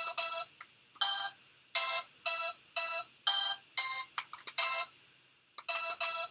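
Simon Micro handheld electronic memory game playing a sequence of short beeps at different pitches through its small, low-quality speaker, about two a second, with a short pause about five seconds in. Each tone is cut off short.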